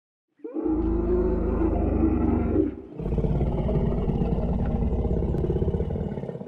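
A deep roar sound effect in the style of a T. rex, in two long parts. The first starts about half a second in and breaks off shortly before three seconds. The second is a rattling one that follows at once and fades out at the end.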